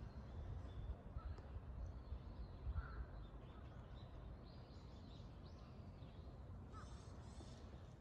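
Outdoor ambience: a steady low rumble of wind on the microphone, with a few faint bird calls, two of them in quick succession near the end.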